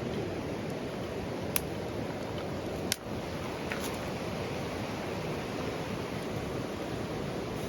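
Campfire burning under a cooking pot: a steady low rush with three sharp crackling pops.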